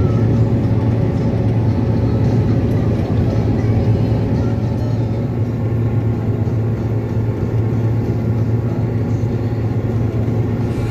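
Large diesel harvest machinery running steadily at working speed, with a deep even hum and dense mechanical noise.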